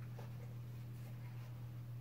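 Faint scraping of a drywall knife spreading joint compound, over a steady low hum.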